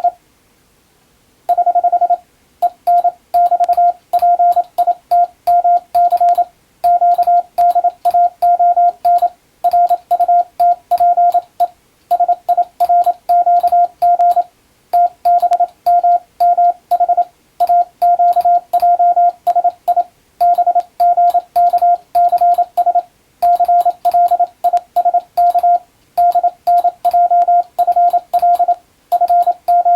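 Latin-alphabet Morse code (CW) sent on an electronic keyer: a single steady beep keyed on and off in evenly timed dots and dashes. The characters come in groups separated by short pauses, with a longer pause about a second in.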